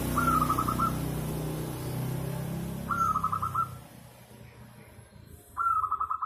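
Zebra dove (perkutut) cooing: three song phrases about three seconds apart, each a short opening note followed by a quick rolling run of about five notes. A low rumble sits under the first two phrases and fades out about four seconds in.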